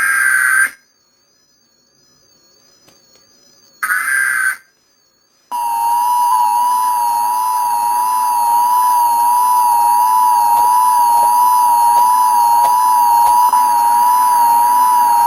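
Emergency Alert System test tones: two short bursts of digital data tones (the SAME header), about four seconds apart, then from about five and a half seconds in the long, steady two-tone EAS attention signal.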